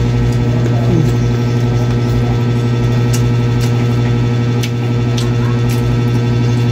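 A steady, loud low machine hum with evenly spaced overtones, unchanging throughout. A few light, sharp clicks sound from about three seconds in.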